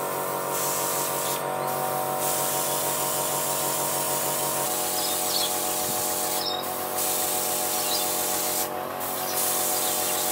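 Airbrush spraying white base-coat paint, a steady hiss of air, over the steady hum of a small airbrush compressor. The hiss breaks off briefly three times as the trigger is let go, and the compressor's hum drops a little in pitch about halfway through.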